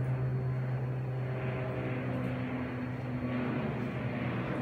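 Steady low machine hum, with fainter steady tones joining it about a second and a half in.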